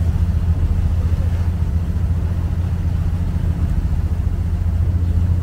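A river water bus's engine running with a steady low drone, heard from on board.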